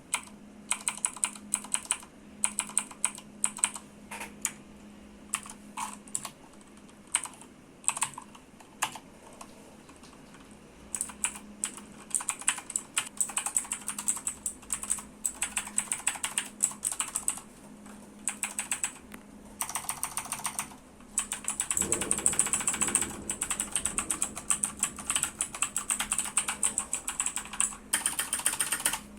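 Redragon Kala K557W mechanical keyboard with clicky Outemu Blue switches being typed on. Single keystrokes come a few at a time for about the first ten seconds, then typing speeds up, and in the last third it becomes rapid, near-continuous clicking.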